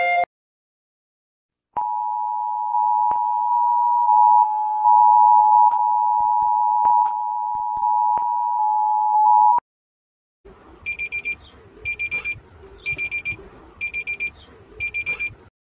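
Emergency alert system alarm: a steady two-tone attention signal held for about eight seconds and cutting off suddenly. After a short gap comes a series of about six short, high beeps over a hissy background.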